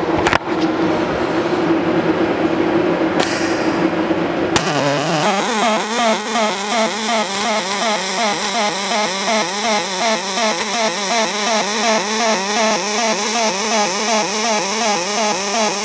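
ANDELI MIG-350FP MIG welding arc on aluminium with 1.2 mm aluminium-silicon wire in double-pulse mode, pulse frequency set to 2.1. The arc starts about four and a half seconds in and buzzes with a steady wobble of about two pulses a second. Before it, a steady hum with a click.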